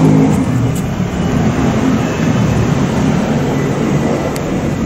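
Steady, loud rumbling noise with a low droning hum underneath.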